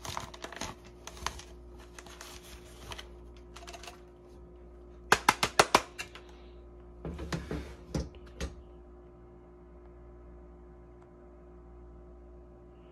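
Cloth rubbing and scraping inside the plastic housing of a Dyson cleaner head, then a quick run of sharp plastic clicks about five seconds in and a few knocks of the parts being handled, after which only a faint steady hum remains.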